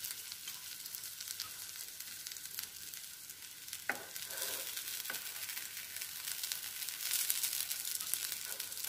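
Carrot-and-onion patties shallow-frying in a little oil in a nonstick pan, sizzling and crackling while a spatula turns them one by one. The sizzle grows louder from about halfway through, and the spatula knocks lightly on the pan twice, about four and five seconds in.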